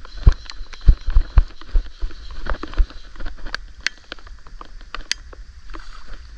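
Handling noise while a hooked redfish is played on a fly rod: irregular dull bumps, thickest in the first two seconds, then a few sharp clicks.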